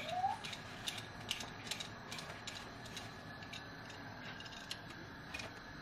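Handheld Y-shaped vegetable peeler scraping the skin off a raw carrot in a run of short, faint, irregular strokes, several a second.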